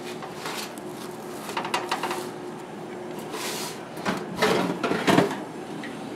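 Plastic spatula scraping and clattering on a metal baking sheet as a baked stromboli is turned over inside an oven, then the oven rack sliding back in with a metallic rattle, the loudest moment, about four to five seconds in. A faint steady hum sits underneath.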